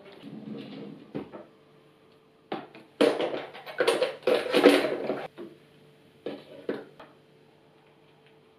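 Small glass and plastic cosmetic bottles being picked up from a wooden table and handled, knocking and clinking together in a loud clattering run about three seconds in, with a few single knocks before and after. Soft rustling comes first, and a faint steady hum sits underneath.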